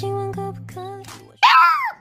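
A pop song with a singing voice fades out. About a second and a half in, a puppy gives one loud howl that rises and then falls in pitch.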